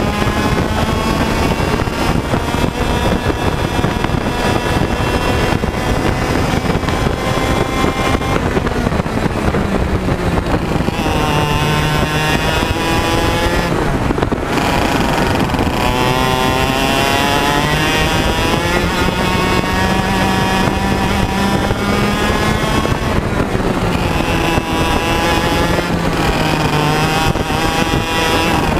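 Onboard sound of a TAG100 racing kart's 100cc two-stroke engine at racing speed, its pitch climbing on acceleration and falling twice as it slows for corners.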